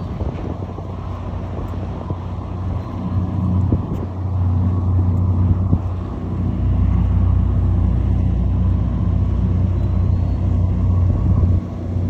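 Ferry engines running with a steady deep hum under a rushing noise. The hum grows louder about four seconds in and again past the middle, then eases near the end.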